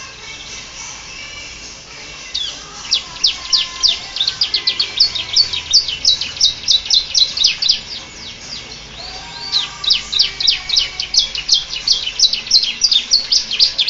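Domestic canary singing a fast, rapidly repeated run of sharp downward-sweeping chirps in the style of the ciblek (bar-winged prinia). The song starts softly, becomes loud about two seconds in, pauses briefly around nine seconds, then resumes.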